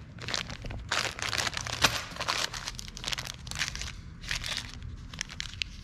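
Small clear plastic bags of bolts and hardware crinkling and rustling as they are handled, in irregular bursts, with one sharp click about two seconds in.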